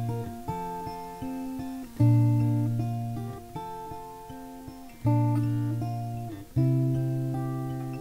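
Solo acoustic guitar fingerpicked in a slow instrumental introduction. Deep bass notes are struck every couple of seconds, each ringing and fading, with lighter picked higher notes in between.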